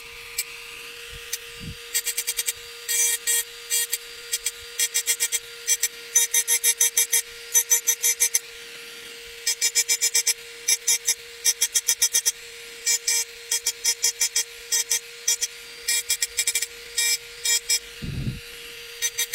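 Pen-style rotary engraver running with a steady whine while its bit grinds into a glass tumbler in many quick short strokes, each a high scratchy burst, coming in clusters with short pauses. A soft low bump near the end as the glass is shifted in the hand.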